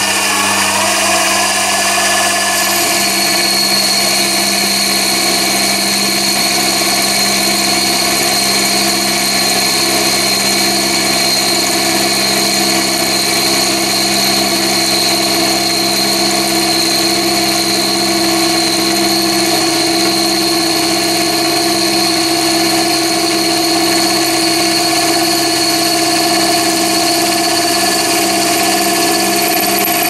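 Chinese mini lathe running steadily under power while a boring tool takes light cuts forming an internal cone in the spinning mandrel: a steady mechanical whine made of several fixed tones. A steady high tone joins about two and a half seconds in.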